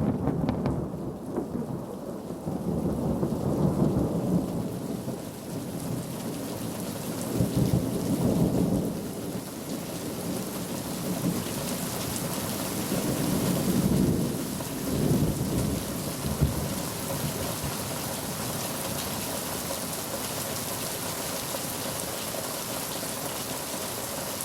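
Thunder rumbling in several long rolls over steady rainfall; after about fifteen seconds the rumbles die away and only the rain continues.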